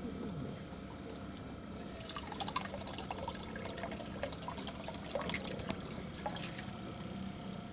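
Water trickling and splashing as it flows through an aquaponics system's pipes into a tank, with a steady low hum underneath. Small drips and splashes grow busier from about two seconds in.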